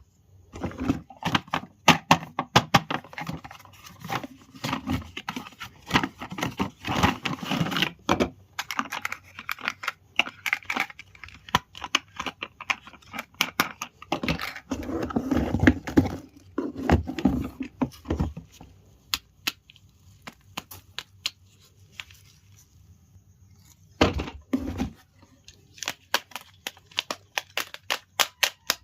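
Toy packaging being torn open and handled: crinkling plastic and tearing, with many small sharp clicks and cracks. It quiets for a few seconds past the middle, then ends in a rapid run of small clicks.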